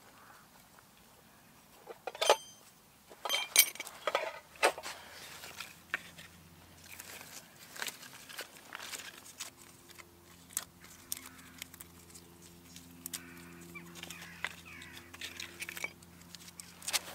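Split wooden kindling sticks knocking and clattering as they are laid over a fire pit, with a few loud clacks between about two and five seconds in, then lighter taps and rustles of bark being handled. A steady low hum sets in about five seconds in and carries on underneath.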